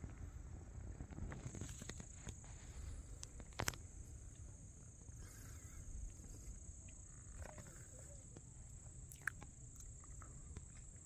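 Wind buffeting the phone's microphone in a low rumble, with a steady high-pitched hum and two sharp clicks, one about four seconds in and one near nine seconds.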